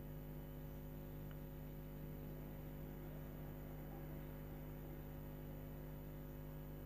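Faint, steady electrical mains hum: a low buzz made of several steady pitches layered together, with nothing else happening.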